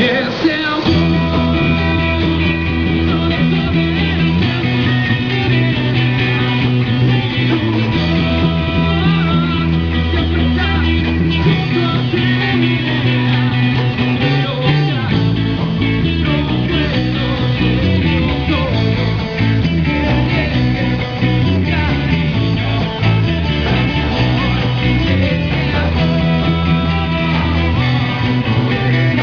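Live rock band playing amplified: electric guitars over a steady bass line, with a singer's voice through a microphone.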